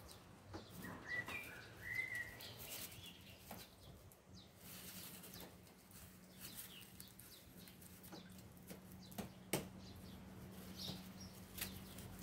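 Faint scattered clicks and crinkles of gloved hands working on a sheet of aluminium foil, with small birds chirping briefly now and then in the background.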